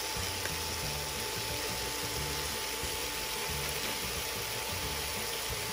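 Asparagus and shrimp frying in oil in a pan on an induction cooktop: a steady, even sizzle, with a thin steady high tone from the cooktop underneath.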